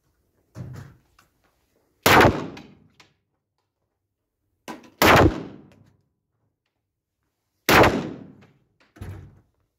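Pistol fired slowly at an indoor range: three loud single shots about two and a half to three seconds apart, each ringing off briefly, with three fainter bangs between them.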